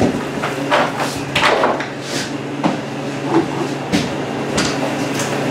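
Deer carcass being pulled by a hind leg and shifted on a grooved floor: scattered scrapes and knocks over a steady machine hum.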